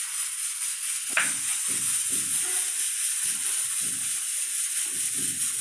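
A blunt kitchen knife slicing tomatoes on a wooden chopping board, giving soft knocks about twice a second with one sharper click. A steady hiss runs underneath.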